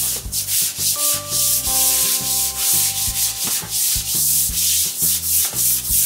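Brush scrubbing a wet bathroom floor in quick back-and-forth strokes, about two a second, working bleach into slimy grime.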